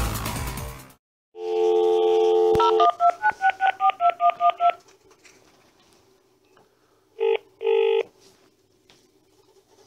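Background music cuts off about a second in. Then a telephone dial tone, a quick run of about a dozen touch-tone keypresses dialling a number, and near the end a single double-beat British ringing tone as the line starts to ring.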